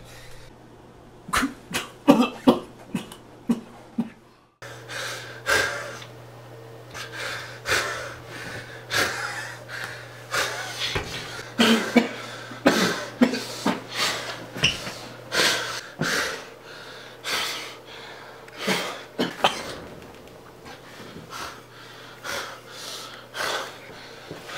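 A man coughing and breathing hard in short, irregular gasps, over a steady low hum.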